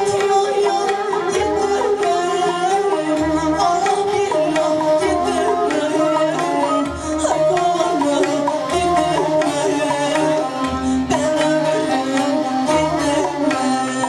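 Turkish folk song played live: bağlama (saz) and other plucked strings carrying the melody over a slow, regular low beat from an electronic percussion pad, with a woman's singing voice.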